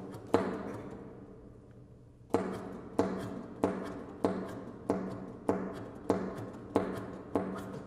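Percussive extended-technique strokes from a flute and saxophone duo: sharp taps that each ring with a short low pitch. One stroke comes near the start and dies away over about two seconds, then the strokes resume in a steady pulse of about one every two-thirds of a second.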